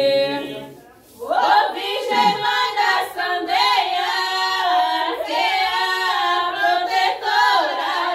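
Group of women singing a Brazilian devotional bendito together, unaccompanied. The singing breaks off briefly about a second in, then picks up again.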